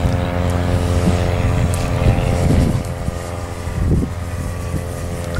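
Large radio-controlled P-47 Thunderbolt model plane flying overhead: the steady hum of its motor and propeller, holding one pitch.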